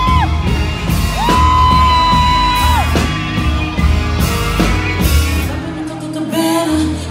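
Loud live performance music: a heavy bass beat pulsing about once a second with a long held high tone over it, and singing and yelling on top. The bass drops out briefly near the end.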